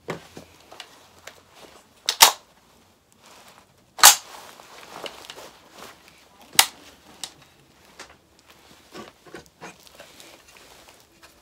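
Gas-powered airsoft L85A2 rifle being handled or fired: three loud, sharp clacks about two seconds apart, among lighter clicks and rattles.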